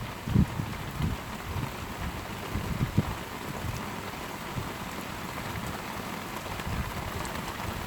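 Heavy rain falling steadily. A few short low thuds come through it about half a second, one second and three seconds in.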